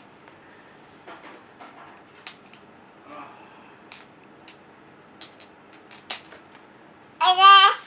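Coins clicking and clinking as they are handled, a series of separate sharp metallic clicks spread over several seconds. Near the end comes a short, loud, high-pitched vocal sound from a small child.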